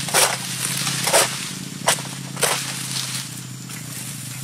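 Egrek, a long-poled harvesting sickle, pulled against an oil palm's frond or bunch stalk: four short, sharp cutting strokes in the first two and a half seconds, over a steady low hum.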